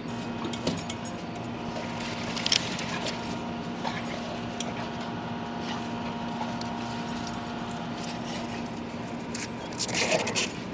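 Dry corn husks and leaves rustling and crackling in short bursts while an ear of corn is handled, loudest about two and a half seconds in and again near the end, over a steady mechanical hum.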